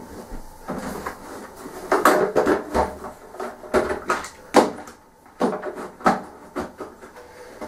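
Hand tools being rummaged through and handled, a run of irregular clinks and knocks of hard objects.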